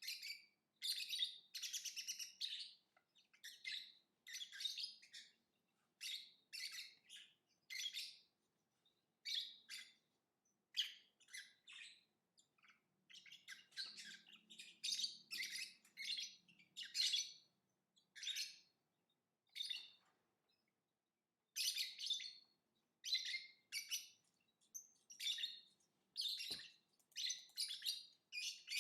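Lovebird chirping: high-pitched bursts of rapid chirps, each under a second or so, repeated with short pauses between them.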